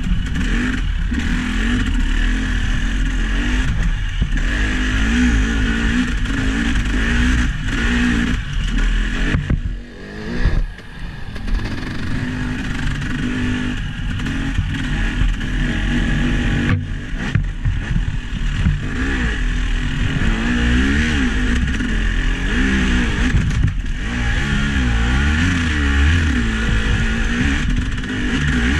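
Vehicle engine running on the move, its pitch wavering up and down with the throttle. It eases off briefly about ten seconds in, with a few sharp knocks along the way.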